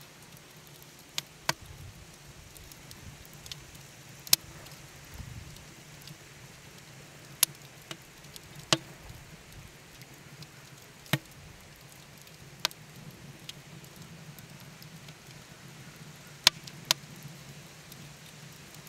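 Wood fire crackling in a cast aluminum chiminea: about ten sharp pops at irregular intervals over a faint steady hiss.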